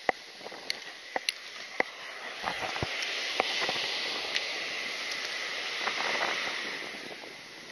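Several sharp clicks from a spinning reel being handled on a surf rod, then a hiss that swells for a few seconds and fades during a cast, with wind and surf behind it.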